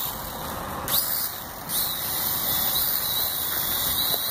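Small V929 Beetle quadcopter's motors and propellers whirring over water: a high whine over a steady hiss, rising in pitch about a second in and again near two seconds, then holding steady.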